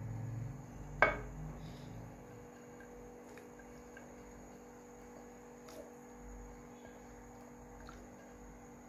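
Sliced carrots sliding off a ceramic dish and dropping into a pot of hot water, with one sharp knock about a second in and a few faint ticks after it. A faint steady hum lies under it.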